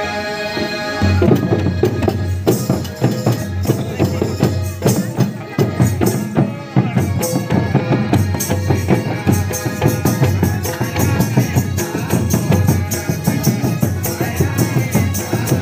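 Santhali folk drumming: a two-headed barrel drum (tumdak') with other hand drums and jingling percussion playing a fast, dense rhythm. It comes in about a second in, after a held tune.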